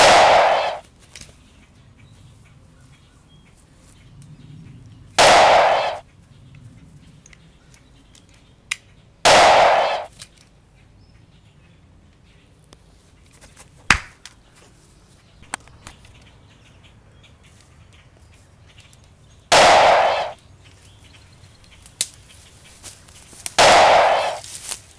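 Dubbed-in gunshot sound effects: five loud single bangs, each with a short tail, several seconds apart, one right at the start and the others about 5, 9, 20 and 24 seconds in. A lone sharp click comes near the middle.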